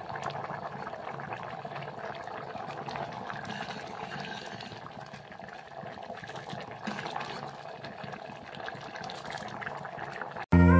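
Thick chana dal simmering in an open pressure cooker, bubbling and popping steadily; the sound cuts off suddenly near the end.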